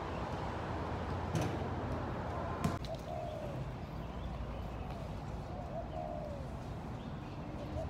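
A bird calling in short falling notes, repeated every second or two, over a steady low rumble. Two sharp clicks come in the first three seconds.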